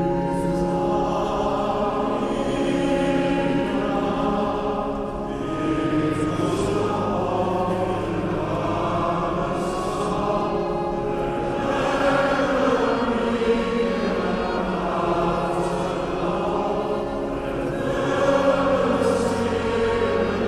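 Choral music: a choir singing with long held notes.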